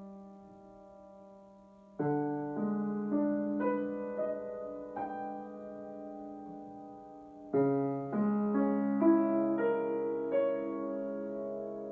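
Grand piano played slowly and softly: a held chord dies away, then a new low chord is struck about two seconds in with single notes added above it one after another, all left ringing. Another chord is struck about two-thirds of the way through, with more notes placed on top as it sustains.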